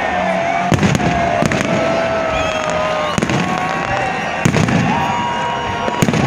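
Aerial fireworks display: shells bursting with deep booms about once a second over a dense crackle, with long whistling tones running through it.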